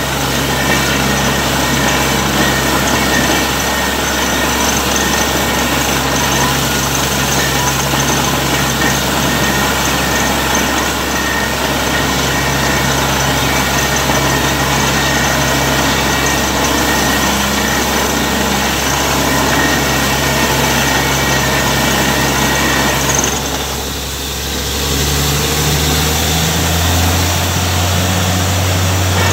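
Borewell drilling rig's engine and compressor running steadily, with a constant rush of compressed air blasting water out of the bore: a heavy water flow from a deep agricultural borewell. Near the end the rush eases briefly and the engine note rises.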